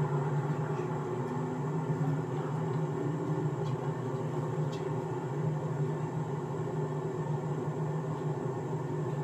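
Car idling at a standstill, heard from inside the cabin as a steady low hum that holds even throughout, with a couple of faint ticks midway.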